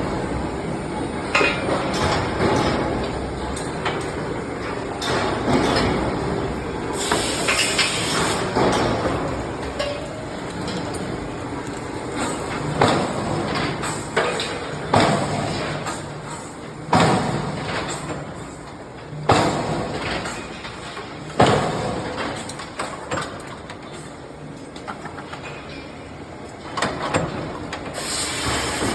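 Forging press running with a steady mechanical clatter, and in the middle a series of heavy strokes about two seconds apart, each followed by a short ring.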